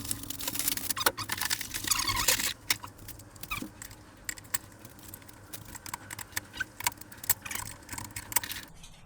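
Rummaging through packaging and loose parts by hand. There is dense rustling for the first couple of seconds, then scattered clicks and small rattles of parts being handled.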